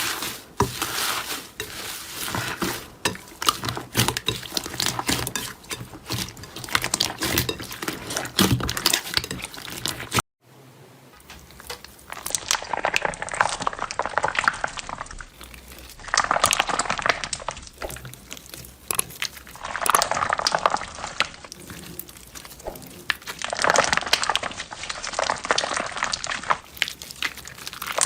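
Slime being squeezed and stretched by hand, with sticky crackling and small popping. The crackling is dense at first. After a short break, it comes in swells about every three to four seconds as the slime is worked.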